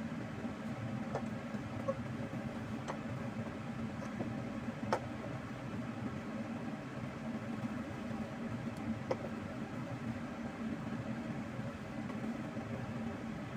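Steady low mechanical hum of a kitchen appliance or fan, with a few light clicks of wooden chopsticks against a nonstick pan as instant noodles are tossed.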